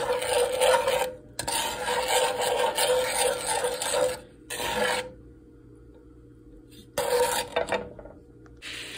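Wooden spatula scraping and stirring across the bottom of a non-stick pan of treacle, sugar and a little water heating together while the sugar dissolves. The scraping stops about five seconds in, then comes back briefly around seven seconds.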